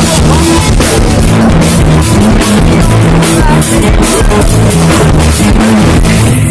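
Rock song in an instrumental passage with no singing: a loud full band, with a drum kit beating steadily over sustained bass and guitar notes.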